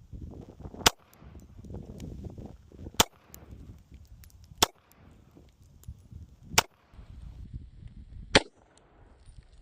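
Five single shots from a Glock 48 9mm pistol, slow-fired about one and a half to two seconds apart, with a low rumble between the shots.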